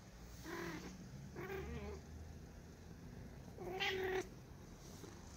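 Domestic cat meowing three times in short calls, the third the loudest and longest.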